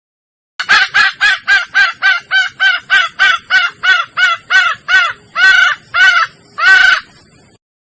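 Red junglefowl hen (Sumatran) calling: a fast run of short clucks, about three a second, then three longer calls near the end. This is the call of a hen in heat calling to males, used as a lure.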